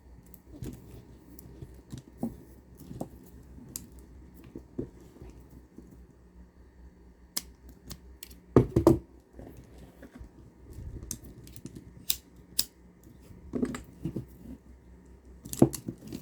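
Plastic pony beads clicking and rattling as a beaded kandi piece is handled and restrung, with scattered sharp clicks and a louder knock about halfway through.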